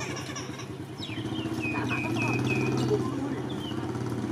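A steady engine hum, with a row of four short, high, downward-bending chirps a little past halfway.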